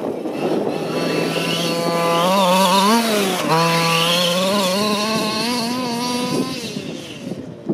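Small two-stroke petrol engine of a large-scale RC truck held at high revs, its pitch wavering and rising with the throttle and dropping briefly about three seconds in, then fading as the truck drives off near the end.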